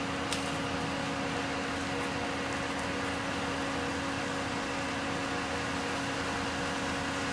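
Tow truck's winches running in a steady mechanical hum with a steady whine as they drag a Ford E350 cab chassis out from under its box. There is a single short click about a third of a second in.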